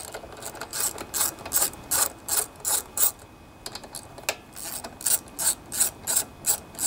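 Socket ratchet wrench clicking in short back-strokes as it backs off the 10 mm nuts on the air filter housing. The clicks come about three a second in two runs, with a pause of about a second partway through.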